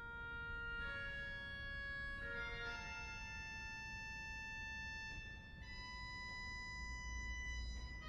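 Rieger pipe organ playing quiet, high sustained chords that shift to new notes several times.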